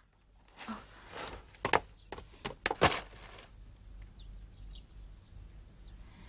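A handful of soft knocks and rustles over the first three seconds, the sharpest near the end of them. Then a quiet background with a few faint, sparse bird chirps.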